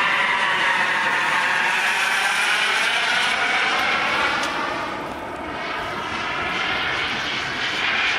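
KingTech K80 turbine of a model Rafale jet in flight, a steady jet whine and rush. It drops in pitch and fades a little about halfway as the jet moves away, then rises and grows louder again near the end as it comes back.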